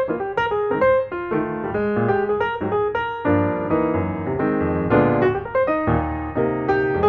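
Piano music, a continuous flow of notes over chords.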